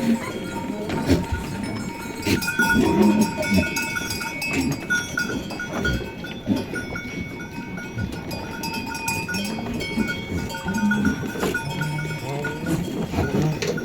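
Bells on a flock of sheep ringing and clinking continuously, with sheep bleating on and off.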